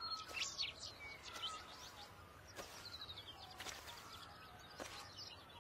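Faint birdsong: many short, quick chirps and whistles from several birds over a low outdoor hiss.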